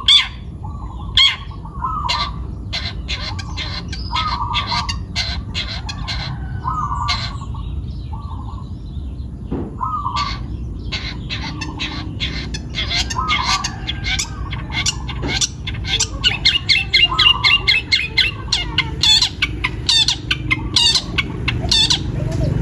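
Long-tailed shrike (cendet) singing: a string of sharp, harsh calls mixed with short lower chirps, breaking into fast rattling runs of notes in the second half.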